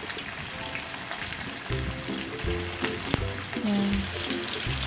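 Chicken wings deep-frying in oil in a wok: a steady crackling sizzle, with one sharp click about three seconds in. Background music runs underneath.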